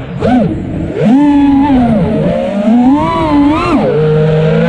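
ImpulseRC Apex FPV quadcopter's brushless motors and propellers whining, heard from the onboard GoPro, the pitch rising and falling with the throttle. The whine drops away briefly at the start as the throttle is cut, surges back about a second in, and climbs and falls again near the end.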